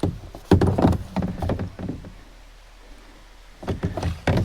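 Hollow knocks and thumps from a kayak hull being bumped and shifted at the bank as someone climbs out, in two clusters: one about half a second in and another near the end.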